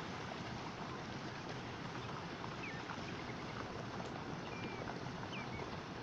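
A large flock of pelicans taking off and settling on water: a steady rush of flapping wings and splashing. A few short, high bird chirps come through in the second half.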